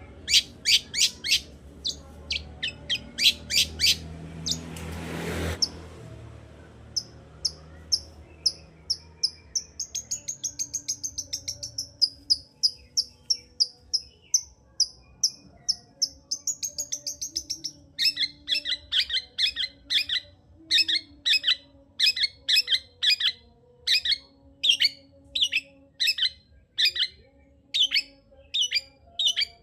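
Long-tailed shrike (cendet) singing hard: bursts of sharp, rapid notes, a short rushing noise about five seconds in, then a fast twittering run with a high thin whistle. From about eighteen seconds in come harsh repeated calls, about two a second.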